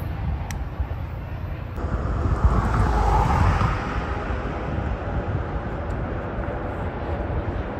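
Outdoor rumble of wind on the microphone and distant traffic, swelling louder for a couple of seconds about two seconds in.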